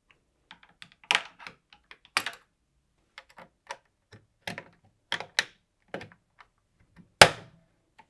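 Small flathead screwdriver levering at the plastic blanking plate on top of a Beko fridge freezer cabinet: irregular light plastic clicks and taps, with one sharp, louder click about seven seconds in.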